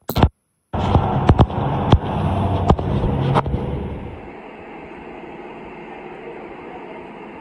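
Outdoor street noise: a loud low rumble with several sharp clicks, dropping at about four seconds to a quieter steady city hiss.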